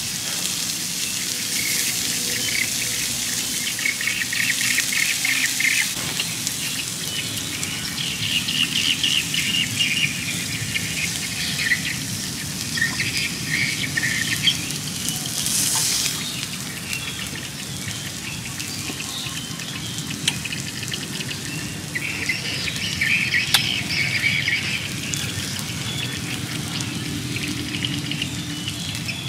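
Beef steaks sizzling on a hot stone slab, a steady hiss, with birds chirping in repeated short bursts over it.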